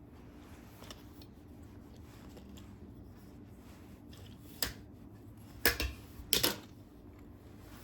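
Three sharp clicks or knocks, about a second apart, the last two the loudest, over a steady low hum.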